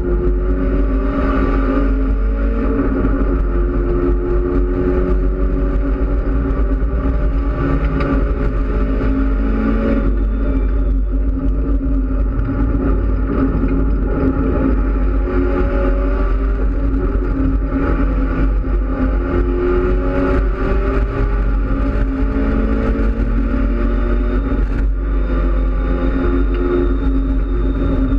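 Mitsubishi Lancer Evolution X race car's turbocharged 2.0-litre four-cylinder engine under hard acceleration on track, heard from inside the cabin. Its pitch climbs and drops again and again as it pulls through the gears and shifts.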